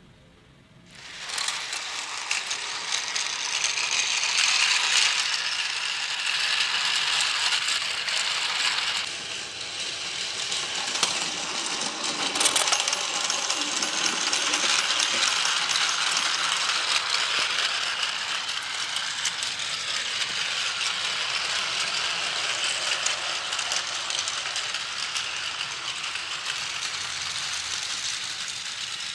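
Plarail battery-powered toy trains running on plastic track: a steady whirring, rattling clatter of the motor gears and the wheels on the track, starting about a second in.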